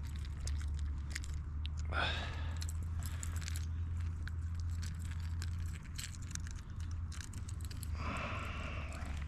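Close handling noise of unhooking a caught small bass: scattered clicks, taps and rustles as the fish and lure are handled and the hook is worked at, over a steady low rumble.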